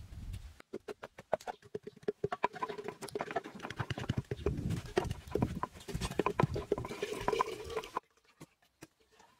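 Rapid, irregular knocking of a rod pestle pounding down inside a ceramic pot, mixed with machete chops into a coconut. The knocking stops abruptly near the end.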